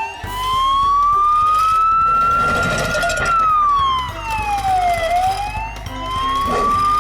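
A siren wailing, slowly rising in pitch, falling about three seconds in, then rising again, over a low rumble.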